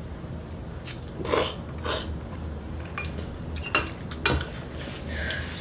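Metal forks clinking and scraping against bowls as noodles are twirled and eaten: about six sharp clinks at uneven intervals over a steady low hum.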